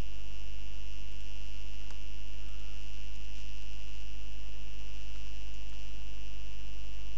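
Steady low electrical hum with a thin, steady high whine, and a few faint mouse clicks.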